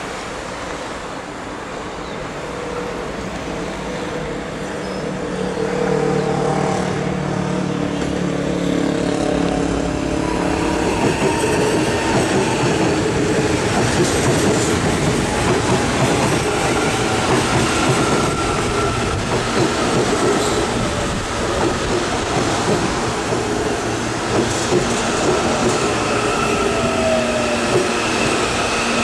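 CAF-built CPTM electric commuter train running past close by: wheel-on-rail rumble with high whining tones. It gets louder about ten seconds in as the cars pass.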